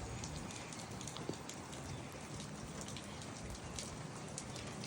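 Light rain falling: a steady hiss of rain with many small scattered drop ticks, not a downpour.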